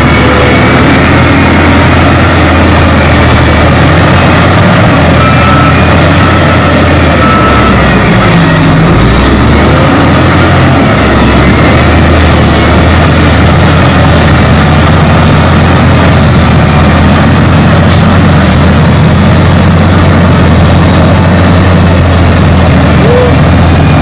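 Shantui L58K wheel loader's diesel engine running steadily under work, with a brief dip about nine to eleven seconds in.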